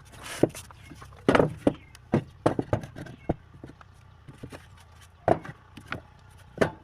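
A series of irregular knocks and taps, about a dozen, uneven in strength, with a sharper cluster of knocks about a second in.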